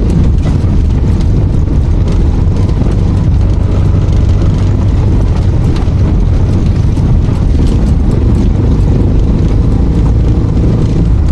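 Vehicle driving over a rough, broken gravel road: a steady low rumble of tyres and running gear, with scattered rattles and knocks from stones and potholes.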